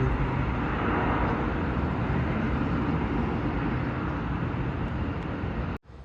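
Airbus airliner's jet engines producing a steady, loud roar that slowly fades and then cuts off abruptly near the end.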